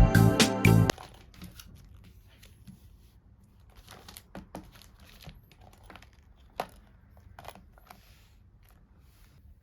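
Soft crinkling and rustling of plastic packaging with scattered light clicks and taps as small items are handled. Piano music cuts off about a second in.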